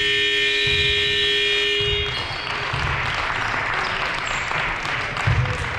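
Basketball gym scoreboard buzzer sounding one long, steady blast that cuts off about two seconds in. Crowd applause and cheering follow.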